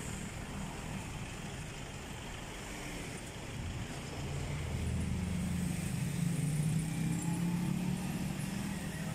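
Street traffic: a passing motor vehicle's engine hums, growing louder about halfway through as it draws near.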